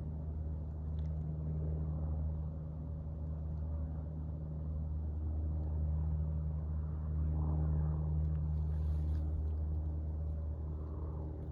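A steady low engine drone, a deep hum of several low tones running without a break.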